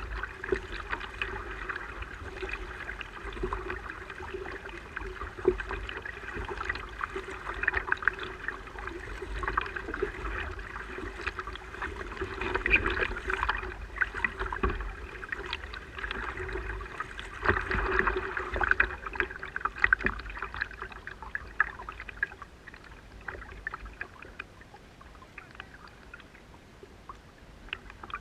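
Water splashing and gurgling against a fishing kayak's hull as it moves, full of small irregular splashes, over a steady faint hum. It grows quieter about three quarters of the way through.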